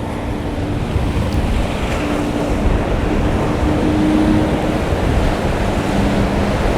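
Wind buffeting the microphone over rough surf, a dense, steady rush, with the faint drone of a boat's engine coming and going underneath.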